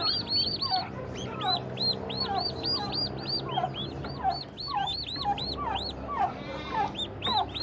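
Newly hatched turkey poults peeping constantly, many high, arching peeps overlapping with lower, falling ones, over a steady low hum.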